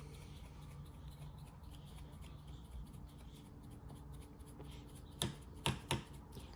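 Hands working sticky homemade slime: faint handling noise, with three short sharp clicks near the end.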